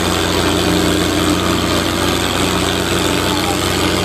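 Tractor's diesel engine running steadily, a continuous low drone with no change in pitch.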